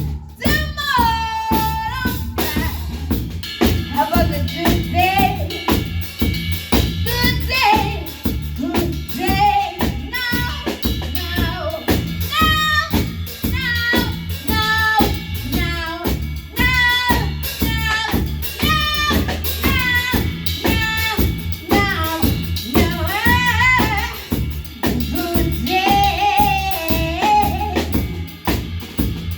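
Live band playing a song: drum kit with kick, snare and rimshots, a steady bass line, and a singer's melody over the top.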